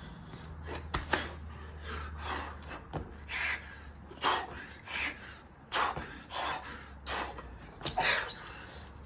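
A man's hard, rapid breathing while doing burpees: short forceful exhales come about every second or less, over a steady low hum.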